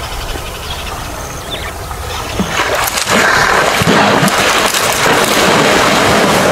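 Water splashing and churning as a hippo charges through a river. It starts about three seconds in, suddenly and loud, a dense rushing splash with many sharp slaps, and goes on without a break.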